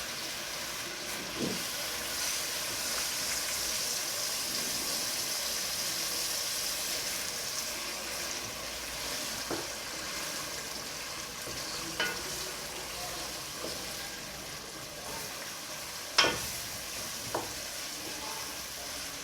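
Spiced oil sizzling steadily in a cooking pot as homemade tomato paste fries in it and is stirred, with a few sharp knocks of the spoon against the pot, the loudest about three quarters of the way through.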